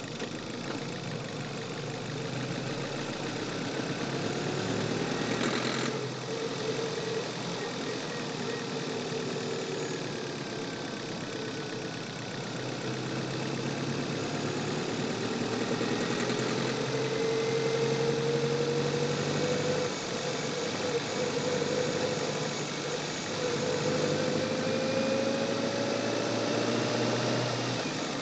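Chevrolet car engine heard from the engine bay, pulling under acceleration, its revs climbing steadily and dropping back twice. A knock or ping comes from the engine under acceleration, a sign of detonation on the Shell 95-octane fuel in use.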